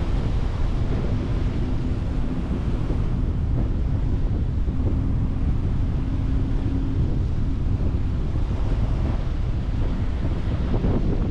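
Sea waves washing on a beach, with heavy wind buffeting on the microphone. A faint steady hum comes and goes underneath.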